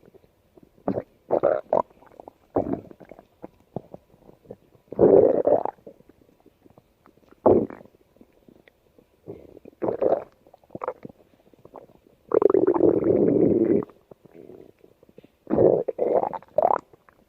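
Stomach growling: irregular gurgles and rumbles, mostly short, with a longer, louder growl of about a second and a half past the middle; one near the end rises in pitch.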